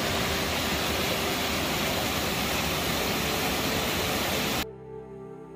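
Waterfall water rushing in a steady, even noise that cuts off suddenly about four and a half seconds in. Soft background music follows it.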